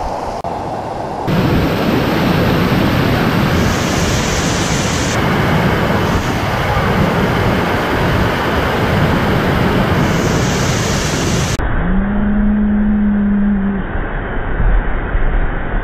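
Whitewater pouring over a low rock ledge on a river: a loud, steady rush of water that starts about a second in. Near the end a long, low, held call sounds over it.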